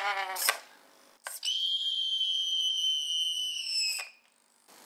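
A pitched sound dies away, then after a single click comes a steady high whistle-like tone, held about two and a half seconds, dipping slightly in pitch just before it cuts off.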